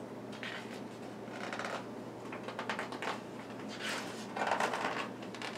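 Pages of a paperback picture book being turned and handled: a series of short, soft paper rustles and flicks.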